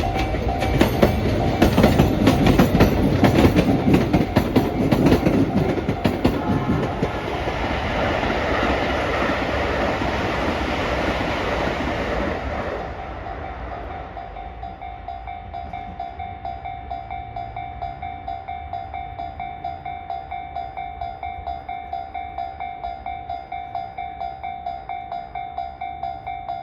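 Freight train of new Shizuoka Railway A3000 cars hauled by a JR Freight DD200 diesel locomotive, rolling over a level crossing with rapid wheel clatter that dies away about 13 seconds in. Throughout, the level-crossing alarm rings with a steady, regular ding, left alone once the train has passed.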